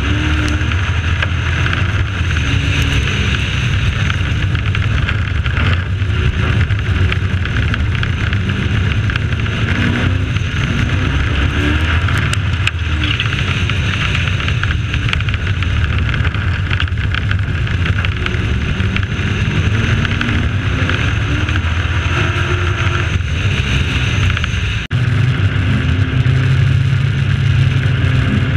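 A race truck's engine running hard at racing speed, heard from onboard, under a steady rushing noise. About 25 seconds in the sound dips sharply for an instant, then the engine comes back louder.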